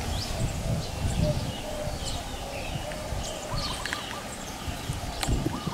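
Scattered short bird chirps and calls, some brief rising notes, over a steady low rumble of outdoor background noise.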